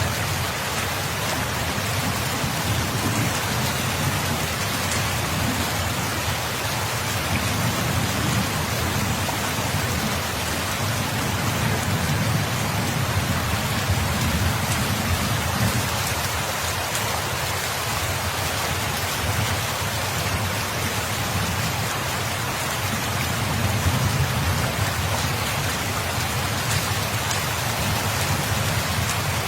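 Steady, dense rain falling on surfaces, an even hiss of many drops, with a low rumble swelling now and then underneath.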